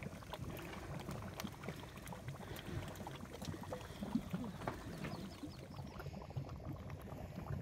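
Mud pots bubbling: thick hot mud popping and gurgling in a steady run of small, irregular plops.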